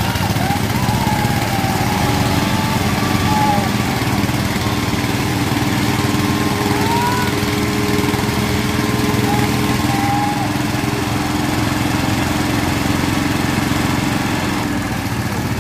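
Power tiller's single-cylinder diesel engine running steadily and loudly while hauling a trolley heavily loaded with paddy straw.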